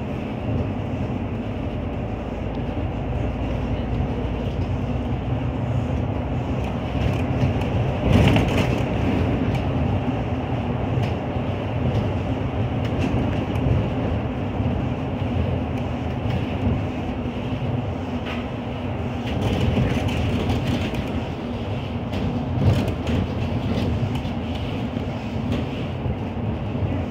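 Inside a MAN Lion's City Efficient Hybrid city bus under way: steady engine hum with road and body noise, and a brief louder rumble about eight seconds in.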